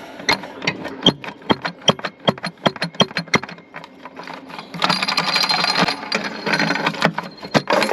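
Quick sharp metal clicks and taps, several a second, for about three and a half seconds, then a longer scraping as the stuck valve cover of a Detroit Diesel 12V71 is worked loose, its old gasket stuck fast to the engine.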